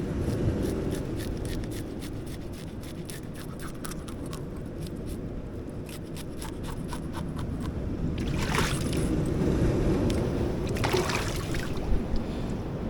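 Sea water washing and trickling over shoreline rocks under a steady rumble of wind on the microphone, with a run of small quick clicks through the first half and two louder washes of water about two-thirds of the way in and near the end.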